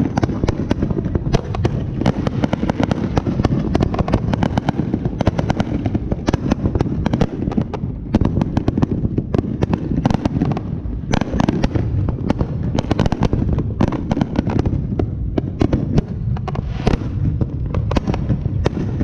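Fireworks going off in a dense, unbroken run of rapid bangs and crackles.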